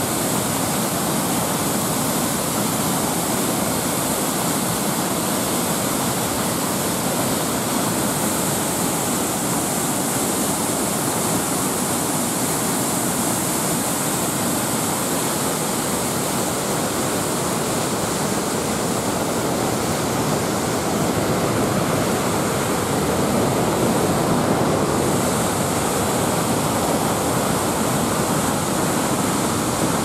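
The Krimml Waterfalls, a large alpine waterfall on the Krimmler Ache, pouring heavy white water over rock: a steady, loud rush of falling water, swelling a little about two-thirds of the way through.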